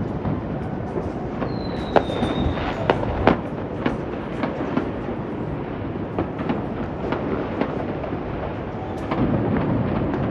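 New Year's fireworks going off: a steady rumble of distant bangs with a dense run of pops and crackles, the sharpest reports about two and three seconds in. A brief high whistle sounds about two seconds in.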